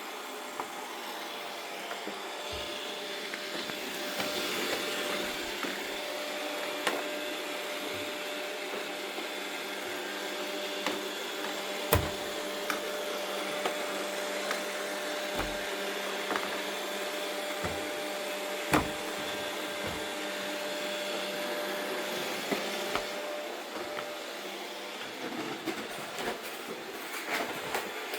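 Robot vacuum cleaners running, a steady whir with a constant motor tone, with a few sharp knocks along the way.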